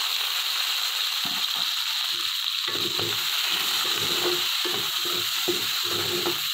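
Chopped onion and green capsicum sizzling in hot oil in a metal karahi, with a steady hiss, while a slotted metal spoon stirs them against the pan in quick repeated strokes from a little under halfway in. This is the light sauté of the vegetables for a chicken Manchurian sauce.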